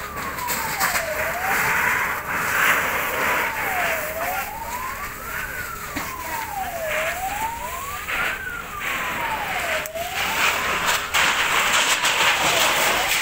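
An emergency vehicle siren wailing, rising and falling slowly about every three seconds, dying away about ten seconds in. Under it is a steady hiss of water jets from fire hoses, which gets louder near the end.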